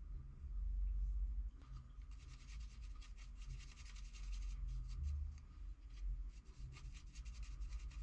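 A stiff bristle brush scrubbed back and forth over a cut-steel knuckleduster plate in quick, scratchy strokes, starting about a second and a half in, with dull handling knocks underneath.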